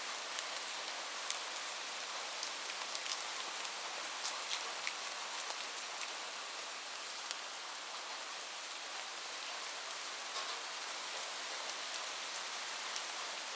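Steady rain falling on a roof: an even hiss with sharp ticks of single drops striking scattered throughout.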